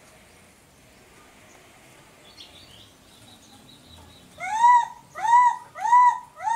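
Young long-tailed macaque crying: four short cries, each rising then falling in pitch, repeated about every half second in the second half.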